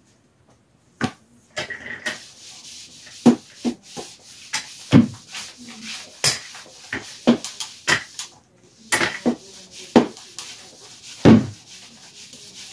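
Swiffer sweeper with a cleaning cloth being pushed back and forth over a tile floor: a steady swishing scrub with irregular knocks, about one a second, starting about a second in.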